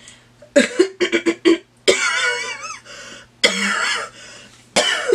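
A woman coughing hard in a fit: a quick run of short coughs, then longer strained, choking vocal sounds between further coughs, with a last cough near the end.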